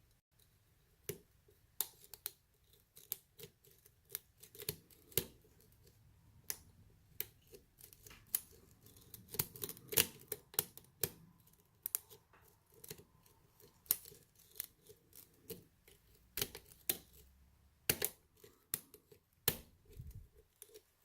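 Small irregular metallic clicks and scrapes of a lock pick and tension wrench working the spool pins inside a lock cylinder, several ticks a second at uneven spacing.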